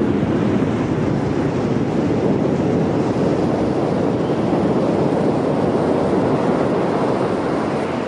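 Ocean surf breaking and washing up a beach: a steady, continuous rush of waves.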